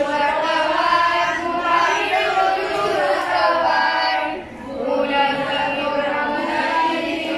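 A group of children singing together in unison, pausing briefly about four and a half seconds in.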